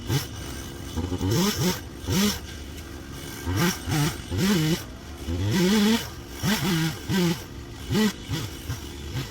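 Two-stroke chainsaw revved up and down over and over in short bursts, its pitch climbing and dropping with each squeeze of the throttle.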